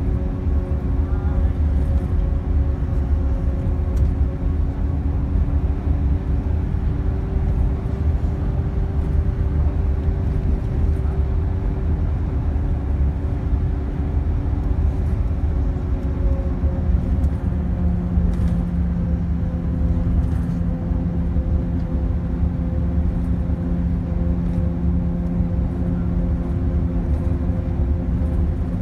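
A car's engine and road noise heard from inside the cabin while driving, a steady low drone whose engine note changes to a new pitch about two-thirds of the way through.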